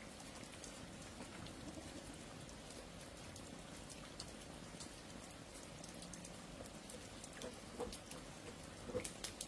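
Light rain falling steadily, with scattered drop ticks and a few louder drips about nine seconds in.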